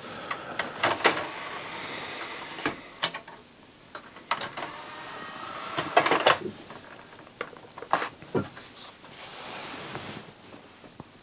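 Sony RCD-W100 CD drive mechanism working: a series of clicks and knocks as the button is pressed and the drive loads, with a short rising motor whine about halfway through and a soft whirring near the end as it tries to spin up and read the disc. The laser comes on but the disc is not read.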